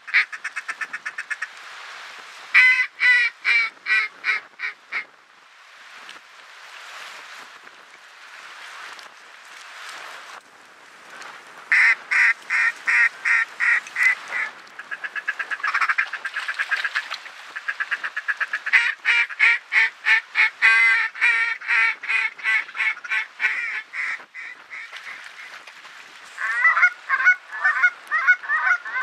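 Ducks quacking in quick runs of short calls, one run of about eight quacks fading away, with goose honks near the end.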